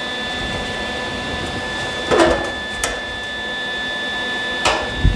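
Locking C-clamps being set and snapped tight on a length of exhaust pipe held against sheet steel: a metal clank about two seconds in, a sharp click just before three seconds, and another clank near the end. Under it runs a steady shop hum with a high, thin whine.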